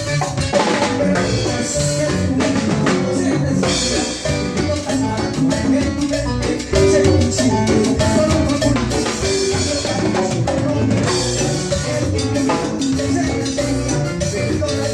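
Latin dance music in a salsa style, with a drum kit and hand percussion keeping a busy beat under pitched instruments, playing loud without a break.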